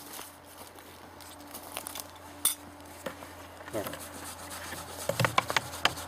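Dishes and cutlery clinking and knocking as food is handled and set out. There is a sharp knock about two and a half seconds in and a quick run of clicks near the end.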